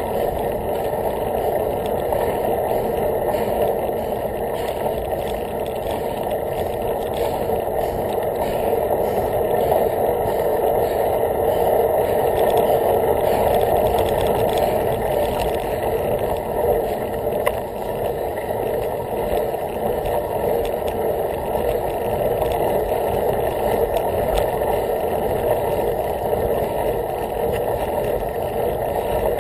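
Steady rushing rumble of a bicycle being ridden: tyres rolling over a leaf-strewn path mixed with wind on the microphone, with no break in the noise.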